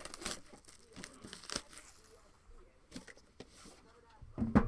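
Shrink-wrap on a sealed trading card box being torn and crinkled in scattered crackles and rustles as the box is opened, with a louder knock near the end.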